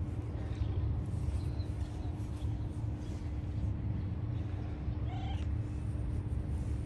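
Brown tabby cat purring in a low, steady rumble, with one short meow about five seconds in.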